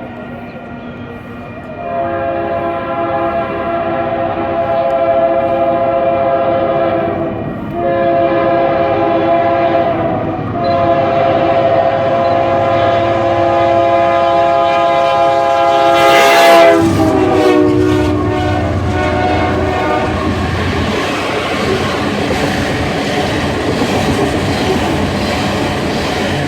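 Coal train's locomotive horn playing a chord in three long blasts, the last one held longest. The horn's pitch drops as the locomotive passes, then the coal cars rumble and clatter by.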